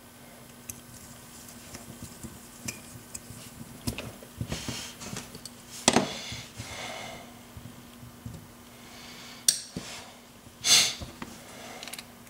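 Small metal parts of a Yale pin-tumbler drawer lock clicking and clinking as the lock is taken apart by hand, with a couple of louder clinks around the middle and near the end over a faint steady hum.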